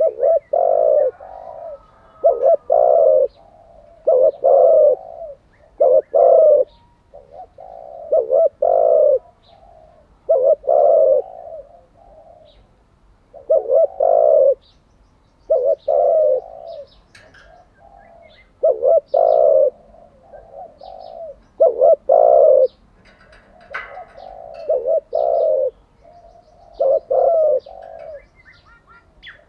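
Spotted dove cooing over and over, low coos in short phrases about every two seconds.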